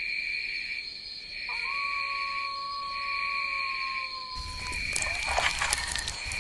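Night ambience of crickets chirring steadily, with one long wolf howl about a second and a half in that holds its pitch and sags at the end. Near the end a crackling campfire comes in.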